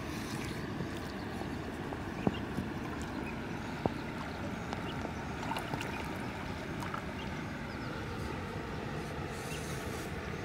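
Shallow river water sloshing and lapping around a wading man's legs as he works, a steady rushing noise, with two sharp clicks about two and four seconds in.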